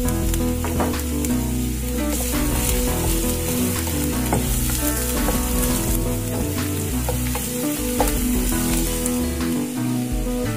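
Chopped garlic sizzling in hot oil in a non-stick frying pan, stirred with a wooden spatula. The sizzle is steady throughout.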